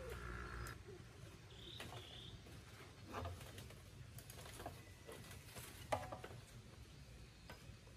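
Faint scattered knocks and footsteps on a raised wooden hut floor, the sharpest knock about six seconds in, with a few faint bird chirps behind.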